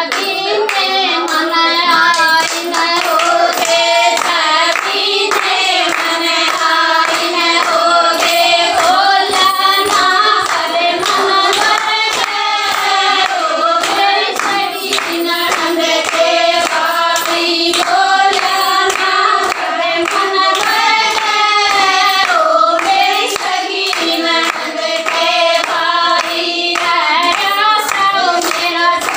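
Women singing a Haryanvi folk song (jakri) with steady rhythmic hand clapping keeping the beat.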